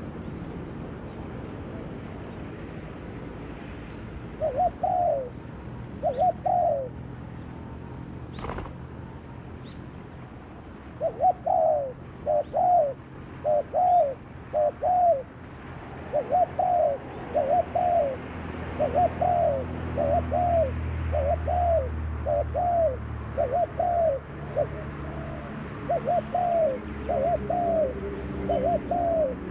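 Spotted dove (terkukur) cooing: a couple of coos about five seconds in, then a long run of evenly repeated coos from about eleven seconds on. A single sharp click about eight and a half seconds in.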